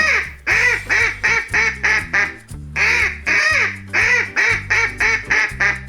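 Duck quacking over and over in quick succession, about three quacks a second with a few longer ones among them, over cheerful background music.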